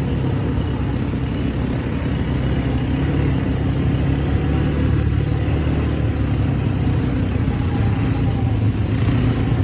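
An ATV engine running steadily, a low drone that grows a little louder near the end.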